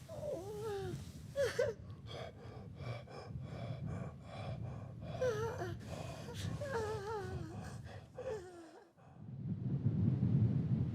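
Whimpering, moaning vocal cries that waver up and down in pitch, mixed with quick rhythmic breaths at about three a second, over a low rumble. A little after eight seconds in the cries stop, and a deep rumble swells up near the end.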